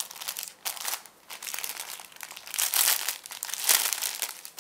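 Clear plastic cellophane sleeve crinkling and crackling as hands pull a planner insert out of it and handle the wrapping, in irregular bursts that are loudest about three and four seconds in.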